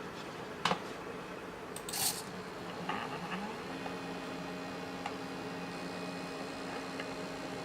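Mini CNC plotter's small stepper motors whining. About three seconds in, the tone rises in pitch and then holds steady as the axis moves. A few light clicks and a short rustle sound over a steady background hum.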